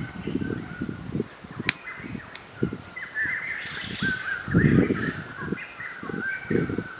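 Small birds chirping and twittering over and over, busiest between about three and five seconds in, over irregular low rumbling thumps. A sharp click comes a little under two seconds in.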